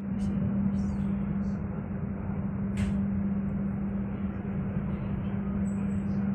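Moving passenger train heard from inside the coach: a steady rumble of wheels on the rails with a constant low hum underneath, and one brief click about three seconds in.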